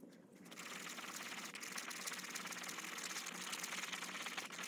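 Electric heat gun running steadily: the hiss of its blower with a fast motor flutter, starting about a third of a second in. It is warming the epoxy to thin it.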